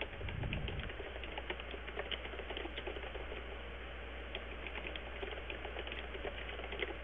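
Typing on a computer keyboard: quick, irregular key clicks, several a second, over a low steady hum.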